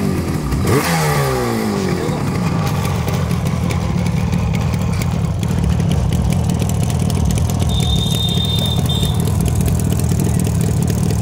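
Rajdoot RD 350 High Torque's two-stroke parallel-twin engine given a quick rev about a second in, the revs falling away, then idling steadily for the rest.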